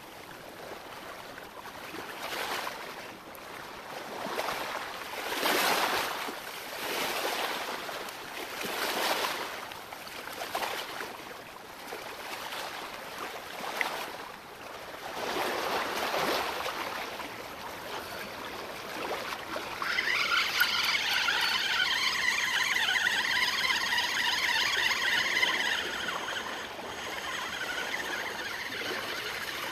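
Sea waves washing against shoreline rocks in repeated swells, one every second or two. About two-thirds of the way in, a louder high-pitched wavering sound rises over the wash for about six seconds.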